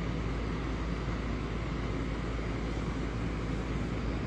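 Steady low rumbling background noise with a hiss, unchanging through the pause in talk.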